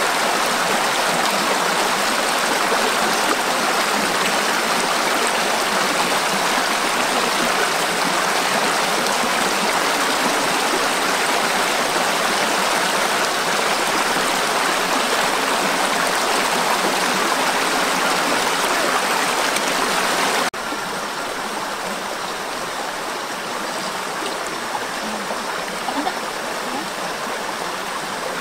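Steady rush of flowing river water. About two-thirds of the way through it cuts abruptly to a quieter, softer rush.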